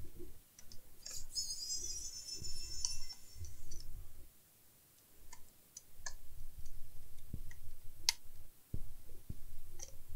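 Scattered light clicks and taps of hands and a screwdriver working on a laptop's bottom case as it is taken apart, with a high-pitched squeak lasting about two seconds about a second in.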